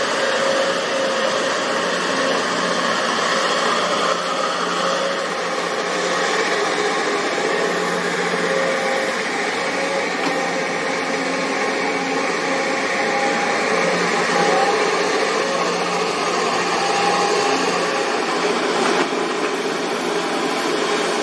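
JCB tracked excavator's diesel engine running steadily under working load as it digs, a constant drone with a few fixed tones over a noisy hiss.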